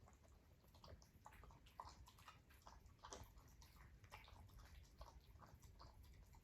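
Faint, irregular crunching of a cat chewing dry food, many small clicks a few times a second.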